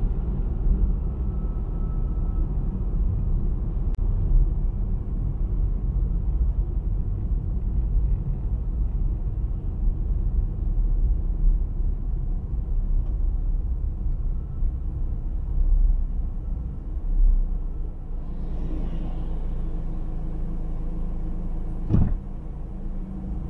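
Car interior road noise while driving: a steady low rumble of tyres and engine, with a single sharp knock near the end.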